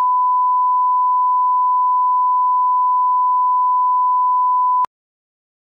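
Steady 1 kHz reference test tone that goes with colour bars, a single pure beep held at one pitch, that cuts off suddenly with a click near the end.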